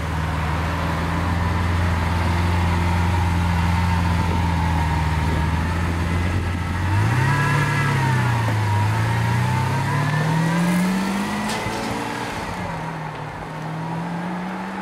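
Lamborghini Aventador LP700-4's 6.5-litre V12 idling steadily, then pulling away. The engine note rises, dips and climbs again, drops at a gear change and climbs once more, fading as the car draws away.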